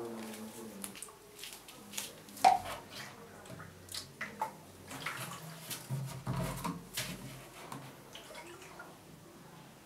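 Large plastic water jug being handled and tipped over a plastic cup: scattered knocks and bumps of the hollow plastic, the loudest about two and a half seconds in, with water sloshing and dripping as it is poured.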